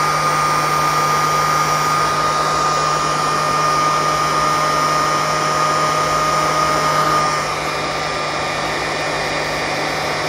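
Nankai electric heat gun running steadily, blowing hot air with a steady low hum and a high whine over the rush of its fan. It gets a little quieter about seven and a half seconds in.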